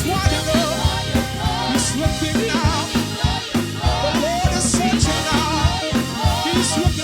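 Gospel music with singing over a band with drum kit and a steady beat.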